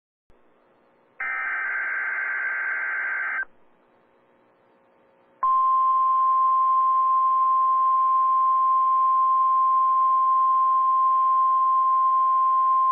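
NOAA Weather Radio alert signals received over a radio. First a harsh digital data burst of about two seconds, the Emergency Alert System (SAME) header. Then, about two seconds later, the steady 1050 Hz warning alarm tone, which starts sharply and holds unbroken.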